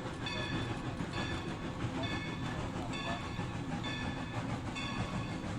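Steam-locomotive sound effects: a locomotive bell ringing about once a second over the steady rumble of the running model train.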